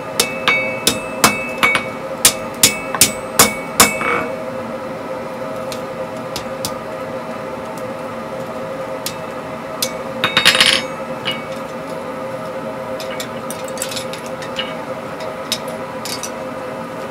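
Hand hammer striking red-hot steel on an anvil: about ten ringing blows in the first four seconds. A brief metallic clatter comes near the middle, over a steady hum.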